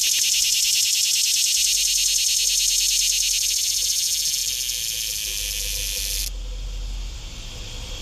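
A cicada calling: a loud, rapidly pulsing high buzz that cuts off suddenly about six seconds in, leaving a fainter high buzz behind.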